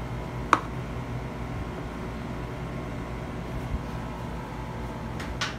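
Steady low mechanical hum, like a kitchen appliance or fan running, with a sharp knock about half a second in and a softer one near the end.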